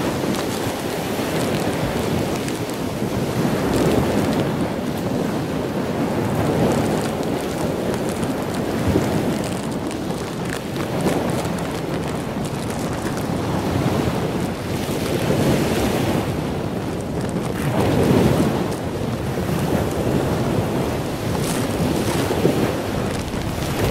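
Heavy storm surf breaking and washing up the beach, swelling and easing every few seconds, with strong wind buffeting the microphone.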